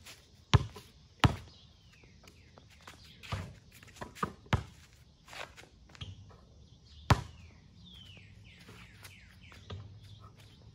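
A basketball bouncing on a concrete pad in sharp separate smacks, two close together near the start and a loud one about seven seconds in. Birds chirp in short falling notes between the bounces.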